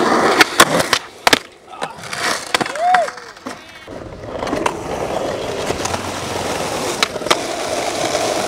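Skateboard wheels rolling over concrete and asphalt, with several sharp clacks of the board popping and landing. A brief rising-then-falling tone sounds about three seconds in.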